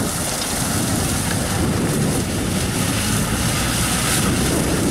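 Kubota L5018 tractor's diesel engine running steadily under load, driving a rear-mounted rotary straw slasher through dry rice stubble, the engine mixed with the rush of the cutter.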